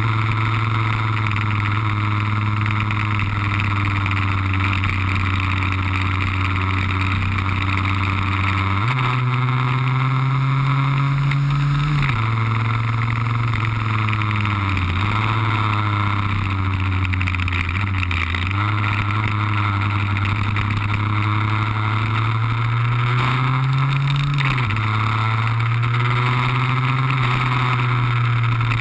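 Lambretta scooter's tuned two-stroke single (RB20 engine) running hard, heard from on board. The engine note holds steady for stretches, then climbs and drops in steps as the rider changes gear and eases off for bends, with sharp drops in pitch about 12 and 24 seconds in.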